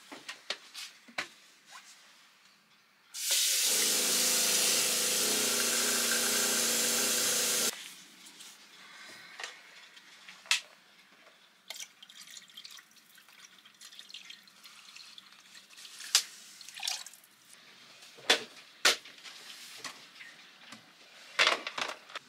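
Galley sink tap running into an electric kettle for about four and a half seconds, starting about three seconds in and cutting off sharply. Light clicks and knocks of the kettle and bottle being handled follow, with white vinegar poured into the kettle to make a hot vinegar solution.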